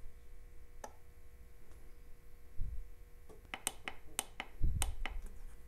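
Sharp clicks of the mode button on a NOCO Genius G7200 battery charger being pressed, stepping through the charge modes to reach repair mode. A single click comes about a second in, then a quick run of half a dozen clicks from about three and a half seconds in, with two low thumps as the charger is handled.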